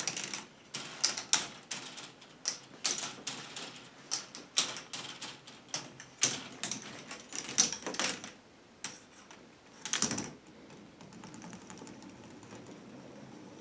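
Plastic ball clattering along a K'nex rod-and-connector track, a run of irregular clicks and clacks several a second. About ten seconds in it gives way to a softer, steadier rolling as the ball runs down the helix.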